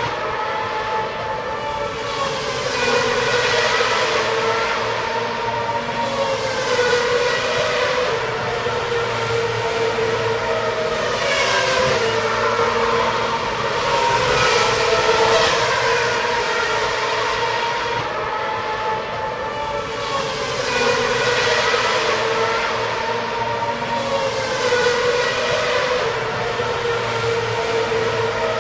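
Racing car engines at high revs, several at once, passing one after another. The sound swells every few seconds as cars go by, their engine notes sliding in pitch over a continuous din of other engines.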